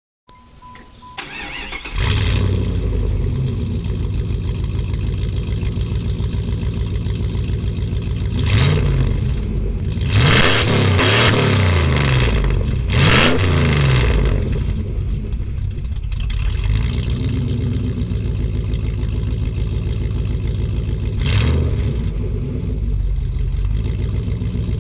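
1995 Jeep Grand Cherokee's 5.2-litre V8 being started through a Cherry Bomb glasspack muffler: it cranks briefly, catches about two seconds in and settles into an idle. It is revved once near the middle, then several times in quick succession, and once more near the end.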